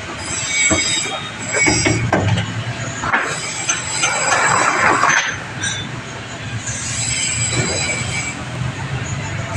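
Anti-smog gun (mist cannon) running: a steady low fan hum under a hiss with high-pitched whining tones. A few knocks come between about one and two seconds in, and a louder rushing surge comes about four to five seconds in.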